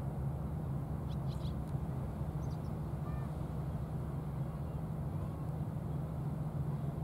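Outdoor ambience: a steady low rumble with a few faint, brief bird chirps about a second in.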